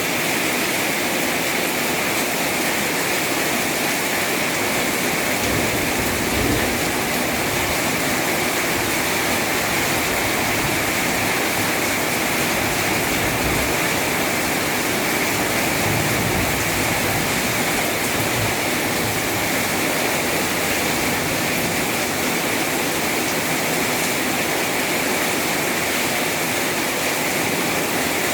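Heavy rain pouring steadily in a storm, a dense even hiss, with a few low rumbling gusts of wind about six seconds in and again around sixteen to nineteen seconds.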